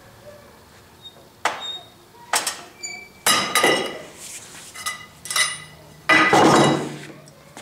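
A Williams 8-inch adjustable wrench and a steel pipe cheater bar clanking and clattering against the vise and bench in a string of separate metallic clanks with a ringing tone, as the wrench slips off the 1-inch square stock it has rounded. The loudest, longest clatter comes about six seconds in.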